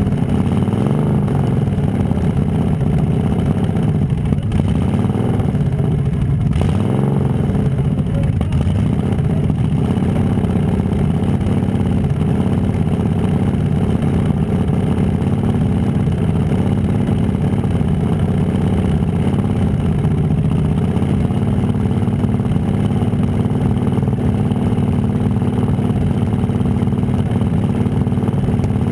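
Demolition derby car engine idling, loud and close, with a steady low rumble that hardly changes.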